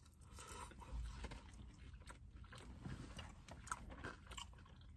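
Faint chewing of mouthfuls of fries, with scattered small clicks and scrapes from plastic forks.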